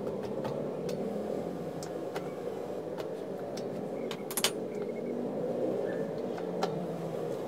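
A few sharp metallic clicks from a bicycle rear cassette and a lockring tool being handled, the loudest a quick double click about four and a half seconds in, over a steady low background hum.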